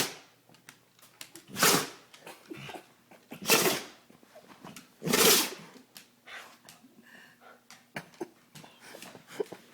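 Dog sneezing in a run, three loud, sharp sneezes about two seconds apart.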